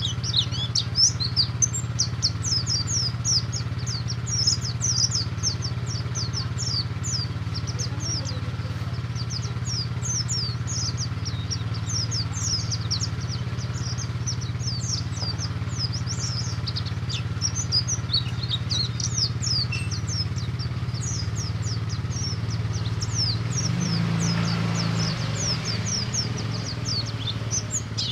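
Pleci buxtomi (a white-eye) singing its fast 'ngalas' song: a continuous rapid run of high, short downward-sweeping chirps. A steady low hum runs underneath and grows louder for a couple of seconds about 24 seconds in.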